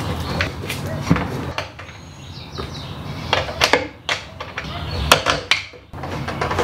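Aluminium exercise-bike frame parts being handled and fitted together, giving a run of sharp knocks and clicks over a low steady hum.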